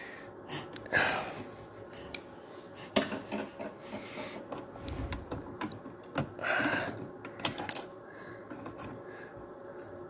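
Irregular small clicks and clatters of needle-nose pliers and fingers working at the plastic parts of a car's under-hood fuse box, prying at a fuse holder to get a blown fuse out.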